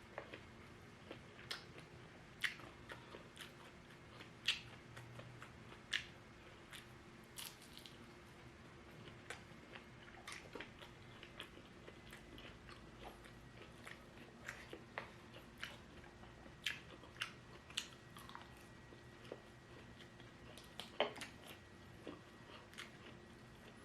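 Close-miked eating: a person biting and chewing fried lumpia and shrimp, with irregular crisp crunches and mouth clicks, one or two a second, over a faint steady hum.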